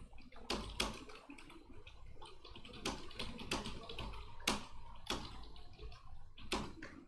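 Computer keyboard being typed on during a typing-speed test: a quick, irregular run of key clicks, some strikes louder than others.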